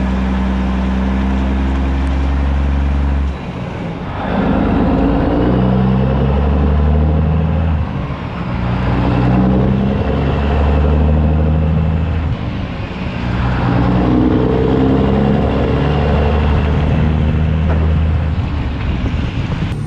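Semi truck's diesel engine pulling a fully loaded flatbed trailer away from a stop, working up through the gears: the engine note and loudness dip at each shift, about every five seconds, three times. Tyres hiss on the wet road underneath.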